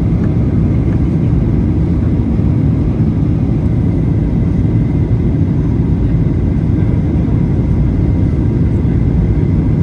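Steady low rumble of a Boeing 737-800 in flight, its CFM56-7B engines and the rushing air heard from inside the passenger cabin.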